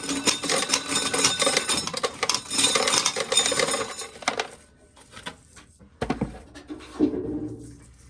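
Dried corn being shelled off the cob, kernels rattling and clattering for about four seconds, then a few scattered clicks.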